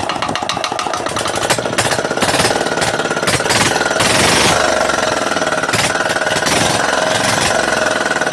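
Engine running just after a hard start, with a rapid, even firing beat; it is revved briefly about four seconds in, then runs steadily.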